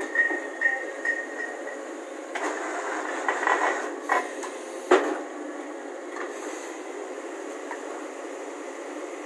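Borewell drilling rig running steadily, with a louder rough stretch a few seconds in and a single sharp knock about five seconds in.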